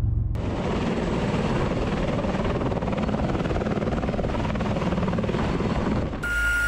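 Helicopter running with its rotors turning: a loud steady rush with fast low rotor pulsing. It cuts in about half a second in and cuts off sharply near the end, where a steady high tone over a low hum takes over.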